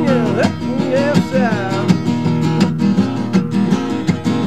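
Song with strummed acoustic guitar. In the first couple of seconds a voice sings the end of a line ("...yourself"), then the guitar strumming carries on alone.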